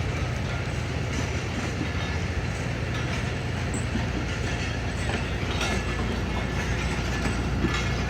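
Diesel-hauled passenger train running, with a steady low engine drone and wheels clacking over the rails.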